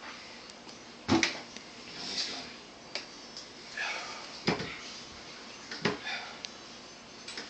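A man eating mayonnaise by the handful from a jar: three sharp knocks, likely his hand or the jar against the jar or counter, with short breathy puffs and sniffs between them as he gulps it down.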